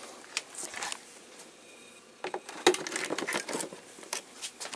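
Handling noise on a workbench: irregular light clicks, taps and rustles. A few come near the start and a denser run follows from about two seconds in.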